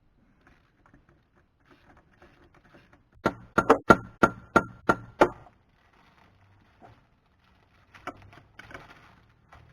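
About seven sharp metallic knocks in quick succession over two seconds, with a short ringing note, as metal parts of a sterndrive and tools strike each other; a few fainter knocks follow near the end.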